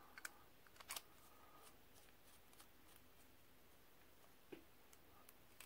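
Near silence broken by a few faint clicks and taps as a Parker Jotter ballpoint pen is handled, the clearest about a second in.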